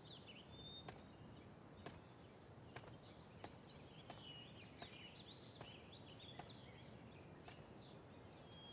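Faint birds chirping and twittering, with soft clicks about every three quarters of a second.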